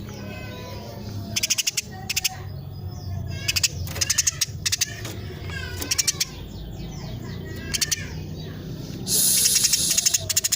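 Female Eurasian tree sparrow calling in quick bursts of clicky chirps and short falling notes, a cluster every second or two, then a harsh hissing burst near the end.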